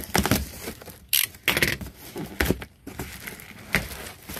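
Box cutter slicing through the packing tape on a cardboard box, then the cardboard flaps being pulled open, in a series of short, irregular scraping and rustling noises.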